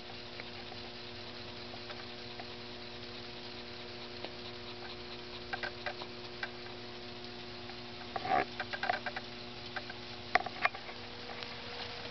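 A small homemade single-cylinder steam engine, fed by a spray-can boiler, running with irregular light ticks and clicks over a faint steady hum. A brief burst of louder clicks comes about eight seconds in and another about ten seconds in.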